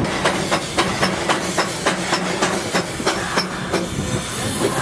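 Darjeeling Himalayan Railway B-class steam locomotive working slowly, heard from beside its chimney: a steady exhaust beat of about four chuffs a second that stops near the end.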